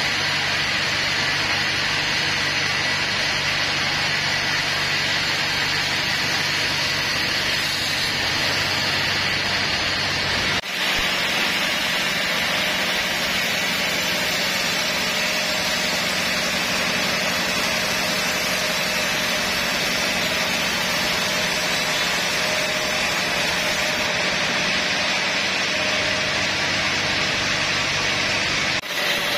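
Sawmill band saw running and cutting lengthwise through a teak log: a steady, dense machine noise with a faint whine. The level dips sharply twice, about eleven seconds in and near the end.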